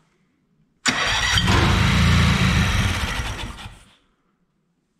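Honda 3813 riding mower's engine, choked, being cranked by its electric starter for about three seconds on a start attempt. The sound begins suddenly about a second in and tails off before the end.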